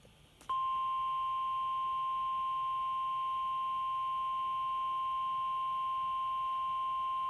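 Emergency Alert System attention tone: a single steady tone near 1 kHz that switches on abruptly about half a second in and holds at an even level, the 1050 Hz warning alarm tone of NOAA Weather Radio that comes before a severe thunderstorm warning is read.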